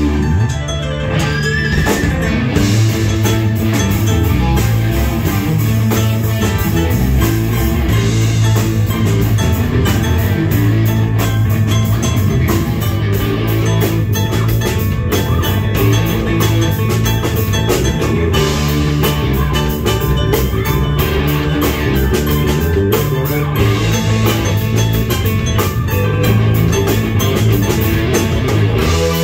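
Rock band playing a cover song live: guitar and drum kit with a stage keyboard, played continuously and loud.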